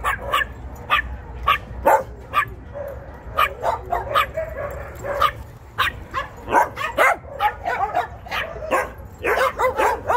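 A group of dogs barking and yipping, many short, sharp barks overlapping irregularly, several a second, thickest near the end.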